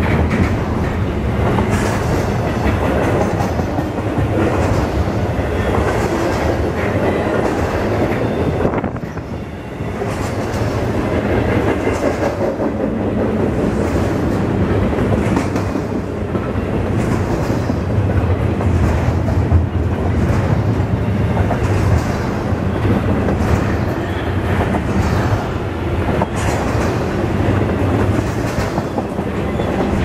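Double-stack intermodal container freight train rolling past close by: a steady rumble of cars, with the clickety-clack of wheels over the rail joints. It drops briefly quieter about nine seconds in.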